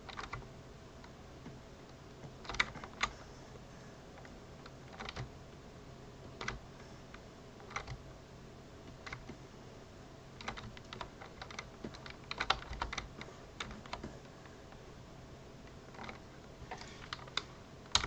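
Scattered clicks of a computer keyboard and mouse, single clicks a second or two apart with a quicker run of them in the middle and again near the end, over a faint steady hum.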